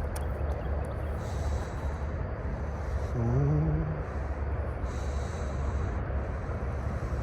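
A steady low outdoor rumble, with a short, low, rising hum from a man's voice about three seconds in.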